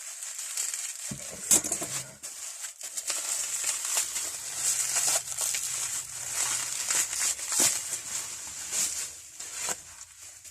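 Crinkling, crackling handling noise with scattered sharp clicks, irregular throughout, dying away near the end.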